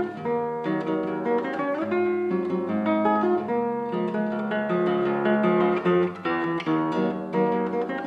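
Background music played on acoustic guitar: a steady run of plucked notes and strummed chords.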